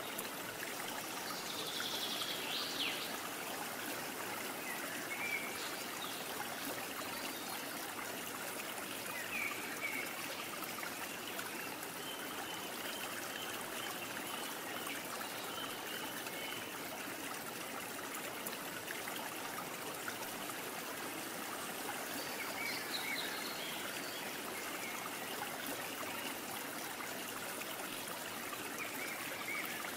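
Steady rush of running water, like a stream, with a few short, high chirps now and then.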